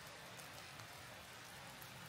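Faint, steady outdoor hiss in snow-covered woods, with light scattered pattering.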